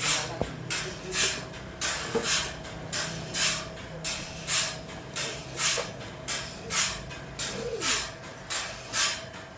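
Rhythmic hissing strokes, two close together about once a second, over a steady machine hum.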